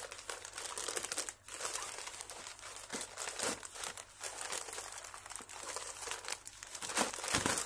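Blue plastic shipping pouch crinkling and crackling as it is handled and pulled open by hand.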